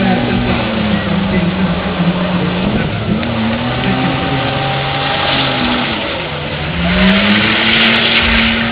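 BMW car doing a burnout: the engine is held at high revs while the rear tyres spin and squeal on the tarmac. The engine note sags about six seconds in and climbs again, and the tyre noise gets louder near the end.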